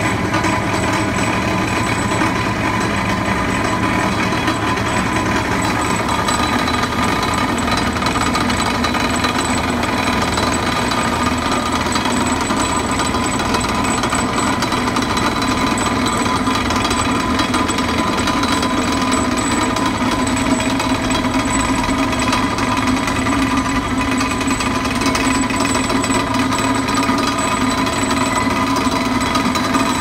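Hydraulic vibratory pile driver running, vibrating a steel H-pile down into sandy ground: a loud, steady mechanical din with a constant hum that does not let up.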